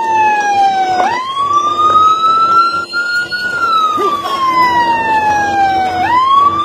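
Emergency vehicle siren wailing: its pitch climbs quickly about a second in, rises slowly, falls off gradually, and climbs again near the end.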